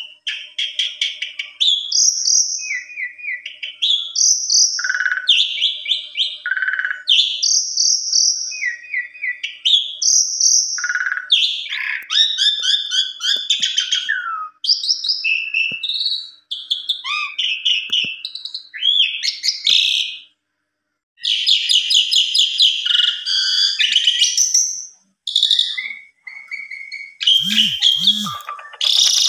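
Asian pied starling (jalak suren) singing a long, varied song of rapid chattering phrases, whistles and trills, pausing briefly twice in the last third.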